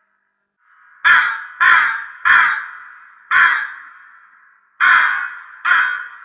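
Crow cawing: six caws, the first three in quick succession about a second in, then three more spaced out over the rest.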